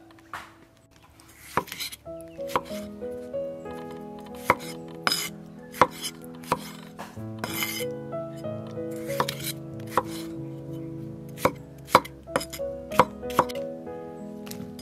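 Kitchen knife cutting tomatoes on a wooden chopping board: a series of sharp, irregular knocks of the blade hitting the board, roughly one a second, over soft background music with sustained notes.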